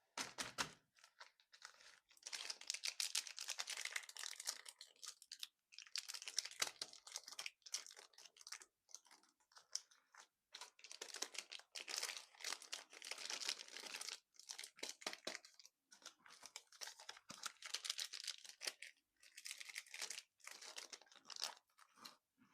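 Close-miked candy wrappers crinkling and tearing, mixed with crunching, in bursts of a few seconds with short pauses between them.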